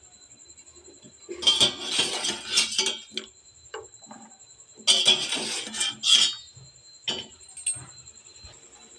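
Wire spider strainer scraping and clinking against a steel pot and plate as boiled elephant foot yam cubes are scooped out and tipped across. There are two clattering scoops of about a second and a half each, then a few single light clinks near the end.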